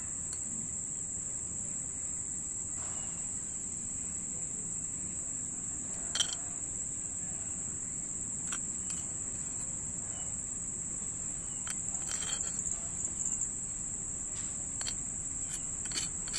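Insects chirring in one steady, high-pitched continuous drone, with a few light clicks and scrapes of a metal spoon stirring grated carrot in a small clay pot, one sharper click about six seconds in and more near the end.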